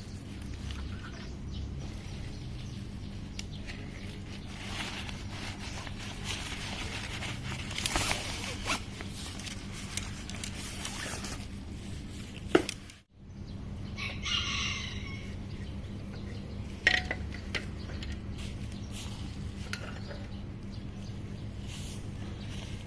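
A single bird call about a second long, a little past halfway, over a steady low hum, with a couple of sharp knocks around it.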